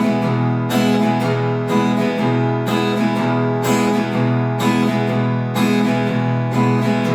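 Acoustic guitar strummed on an E major chord in a western strumming pattern: an accented stroke about once a second, followed by lighter down-and-up strokes and a short pause.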